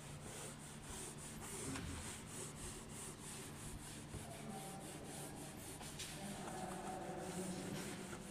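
A whiteboard duster wiping across a whiteboard in quick back-and-forth strokes: a soft, rhythmic rubbing at about three strokes a second.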